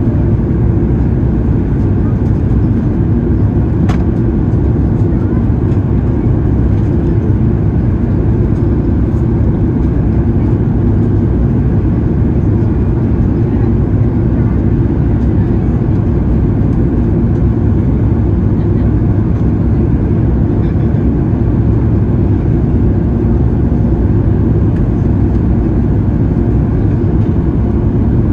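Steady low cabin noise inside a Boeing 737-800 descending on approach: airflow over the fuselage and the CFM56-7B engines, with a faint click about four seconds in.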